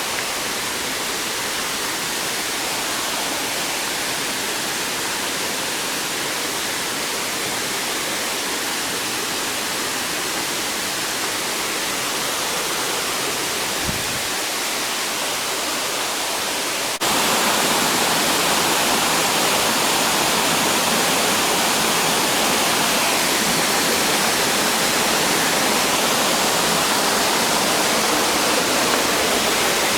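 Waterfall's steady rush of falling water. About 17 seconds in it turns abruptly louder and fuller, and stays that way.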